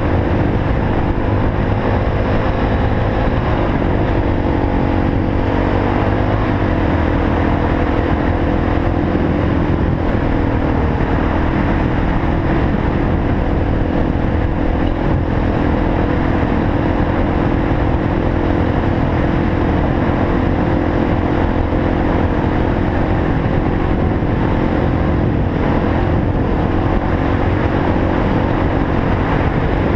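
Suzuki DR-Z400 dual-sport motorcycle's single-cylinder four-stroke engine running at steady cruising speed, heard from a helmet-mounted camera along with wind and road noise. The engine note drops and picks up again a few seconds in and once more around ten seconds in.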